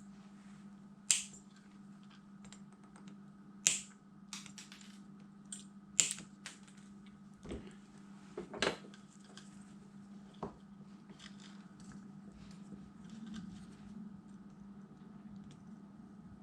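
Flush side cutters snipping component leads on a small circuit board: four sharp snips a couple of seconds apart, with fainter clicks and taps between them, over a faint steady hum.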